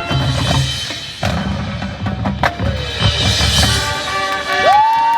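Marching band music, brass over percussion with sharp drum and wood-block hits. Near the end, a long held note slides up into place.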